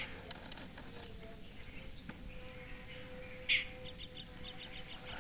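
A small bird chirping: short high chirps repeated about four times a second, with one louder call about three and a half seconds in, over a faint steady hum.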